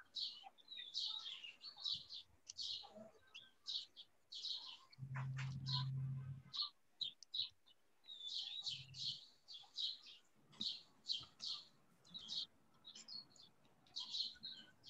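Small birds chirping faintly in quick, high twitters that come in bursts throughout. A low steady hum comes in briefly about five seconds in, and again more weakly later on.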